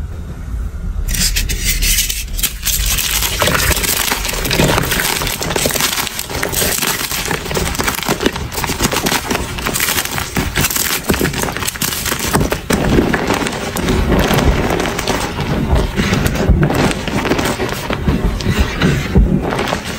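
Blocks of dyed gym chalk crushed and crumbled by hand in a bowl: a steady run of crunching and crackling with many small sharp cracks, starting about a second in.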